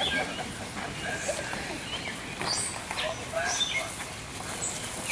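Birds chirping in short, high calls, one a quick falling note about halfway through, over faint voices in the background.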